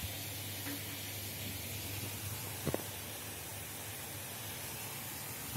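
Steady hiss from a steamer pot of flan cooking over a medium gas flame: steam and burner noise. A single light knock about halfway through.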